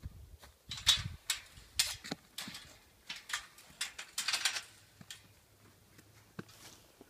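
Footsteps crunching on dry ground, about two a second, stopping after about four and a half seconds.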